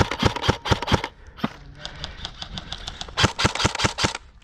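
Airsoft electric guns firing on full auto: two rapid bursts of about eight shots a second, the first lasting about a second and the second starting about three seconds in, with a few single shots between them.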